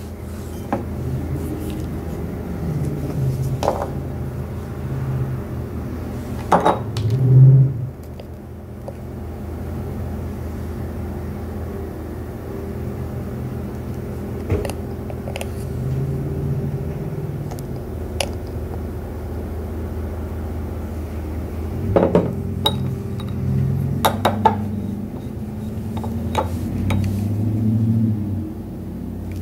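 Spoon clinking and scraping against a small bowl while mixing a turmeric powder paste, with scattered clicks and knocks, over a steady low hum.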